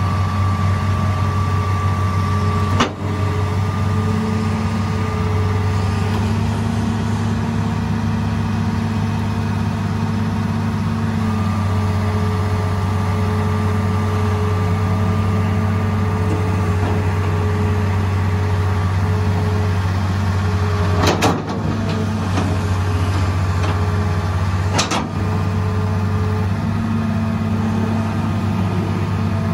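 Hitachi EX270LC crawler excavator's diesel engine running steadily, with steadier higher tones rising and dropping out above it as the machine is worked. There are three short sharp knocks: one about three seconds in and two more near the end.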